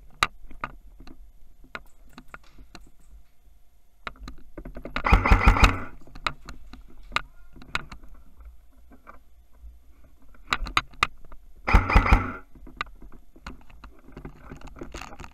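Airsoft electric gun firing two short full-auto bursts, a rapid mechanical rattle about five seconds in and again about twelve seconds in, between scattered clicks and knocks of gear being handled.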